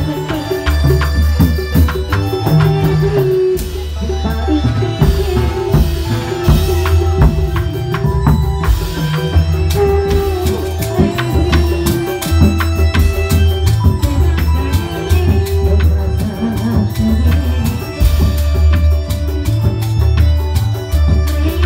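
Live Indramayu reog ensemble music: loud drums keeping a driving beat with sharp cymbal strokes, and a wavering melody line above them.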